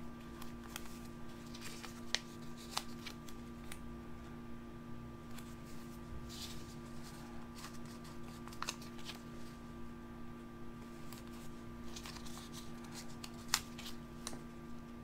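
Paper sticker sheets and planner pages being handled: soft rustling and scattered light ticks and taps, one sharper tick near the end, over a steady low electrical hum.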